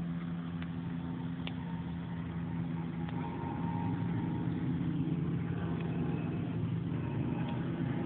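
A steady engine hum, growing a little louder and rougher about three and a half seconds in.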